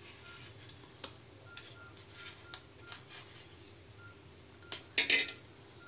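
A knife scraping and clicking against a steel idli plate as steamed oats idlis are loosened and lifted off: scattered short scrapes, the loudest about five seconds in.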